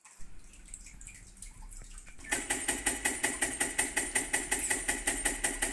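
Keys of a Redragon Draconic K530 mechanical keyboard clacking in a fast, even run, about seven presses a second, starting about two seconds in after a quiet start.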